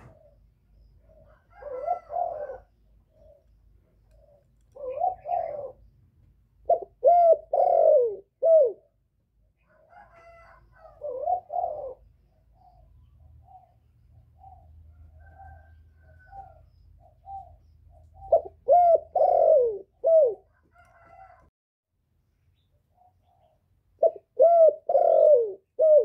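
Male spotted dove cooing its advertising call: several phrases of low coos, loudest as three-note phrases, repeated a few seconds apart, with soft single coos in between.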